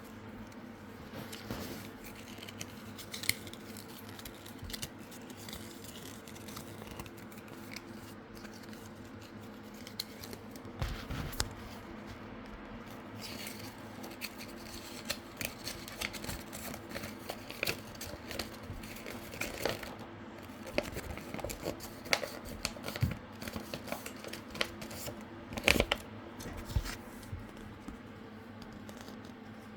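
Packaging being opened and handled: irregular crinkling, rustling and tearing with scattered sharp clicks, louder bursts about a third of the way in and near the end, over a steady low hum.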